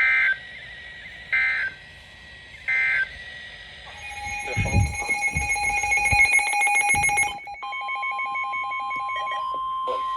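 Emergency Alert System end-of-message: three short bursts of screechy digital data. A jumble of steady, rapidly pulsing electronic tones with a few low thumps follows. About three quarters of the way through, a single steady alert tone starts, like a weather radio's 1050 Hz warning alarm.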